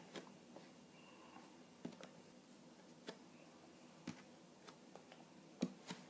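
Quiet room tone with about six short, sharp taps at irregular intervals, the loudest near the end: hands striking each other and the table while signing.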